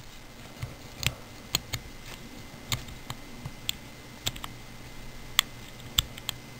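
A short hook pick and tension wrench working the pins of a Brinks R70 brass pin-tumbler discus padlock, as the pins are single-pin picked from back to front. About a dozen sharp, irregularly spaced little metallic clicks.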